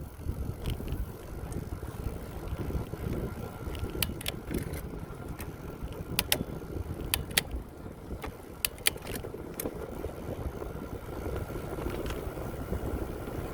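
Bicycle riding: a steady rumble of wind and tyres on the road, with a scatter of sharp clicks and rattles from the bike in the middle stretch.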